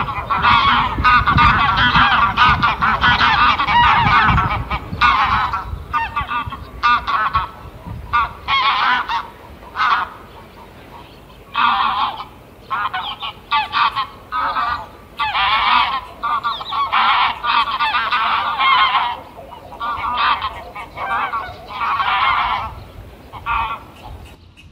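Geese honking, many overlapping calls for the first few seconds, then repeated separate honks with short pauses between them.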